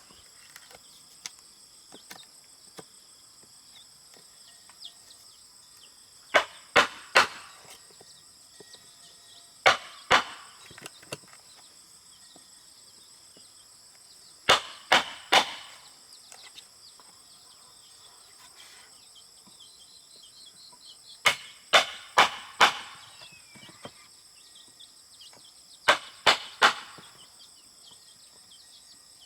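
Hammer blows on wood, in short bursts of two to four sharp strikes every few seconds, each with a brief ring, as when nails are driven while building a wooden swing. Insects drone steadily and high-pitched throughout.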